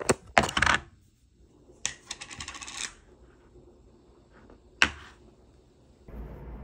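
A thin plastic yogurt tub being handled: its lid is pried off with clicks and two short bursts of crackling plastic, then a single sharp knock as the tub is set down on a hard desk.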